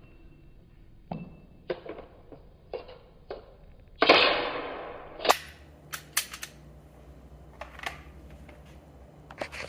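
Gunshots at a shooting range: a string of separate, irregularly spaced shots. The loudest comes about four seconds in with a long echoing tail, and a quicker cluster of sharper cracks follows.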